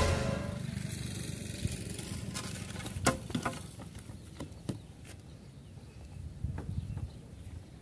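Scattered soft knocks and rustles from a sack dropped on dirt ground and hands handling a parked motorcycle that is not running, over faint outdoor background noise. The sharpest knock comes about three seconds in.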